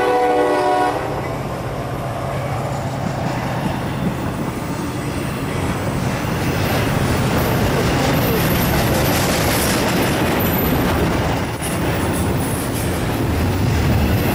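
Double-stack intermodal freight train passing close by: a diesel locomotive's multi-note air horn chord cuts off about a second in, then the steady rumble and clatter of the stack cars rolling past, with a faint high wheel squeal from about seven seconds on.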